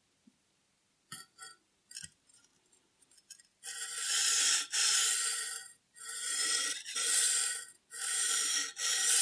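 A few light clicks, then a steel knife blade scraping back and forth across a 1000-grit whetstone in about six even strokes of under a second each, its spine resting on a stack of pennies that sets the sharpening angle.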